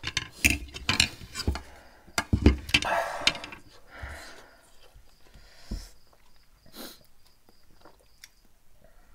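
Eating noodles at a table: a metal fork clinking and scraping on a plate, along with chewing and mouth sounds. The sounds are busiest in the first three or four seconds, followed by a few scattered lighter knocks as a glass is picked up and handled.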